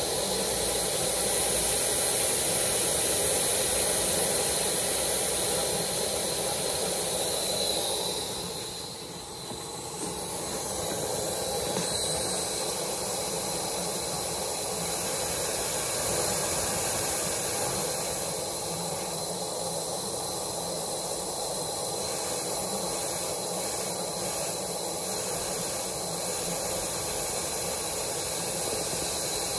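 Steady hiss of steam escaping from leaks on an Aster BR 96 live-steam model locomotive standing still under steam. The hiss dips briefly about nine seconds in, then carries on.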